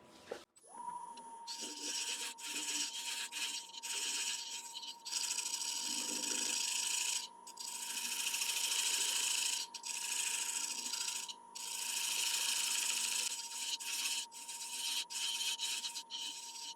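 A bowl gouge cutting a tenon into the underside of a spinning dry damson bowl blank: a hissing scrape in repeated passes a second or two long, with short breaks between them. Under it runs the lathe's steady whine, which comes on within the first second.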